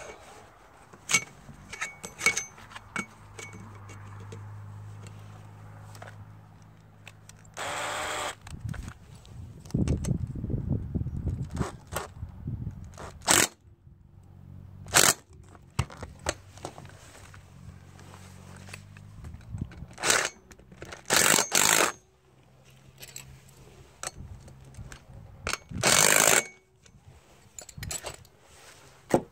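Several short bursts from a cordless DeWalt drill/driver driving the bolts on a satellite dish mount's mast bracket, among sharp clicks and knocks of the metal mast and tools being handled. A low steady hum runs under much of it.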